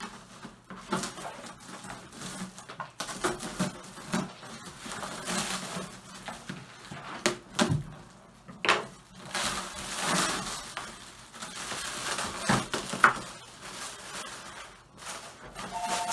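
Clear plastic wrap crinkling and tearing as it is cut with scissors and pulled off a large plastic enclosed cat litter box, with sharp clicks and knocks of the plastic parts. Right at the end a phone starts ringing with a pulsing two-tone ring.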